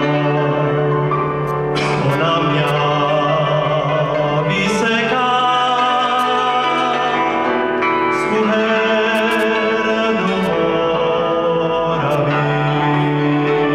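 A male folk singer sings long held notes over a cimbalom band, with fiddles and double bass accompanying him.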